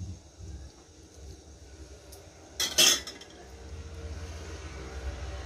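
Hands rubbing and breaking up damp couscous semolina in a glazed clay dish, with a short, loud clatter about three seconds in. A low steady rumble builds behind it in the second half.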